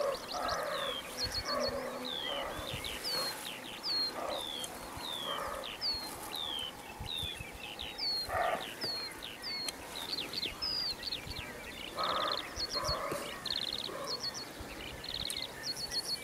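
Roe deer buck barking: short, harsh barks, several in quick succession at first, one strong bark about eight seconds in and another group near the end. It is barking at the rustle of the hunter's steps in the dry grass, taking him for a rival buck. A bird sings repeated high, downward-sliding whistles and short trills throughout.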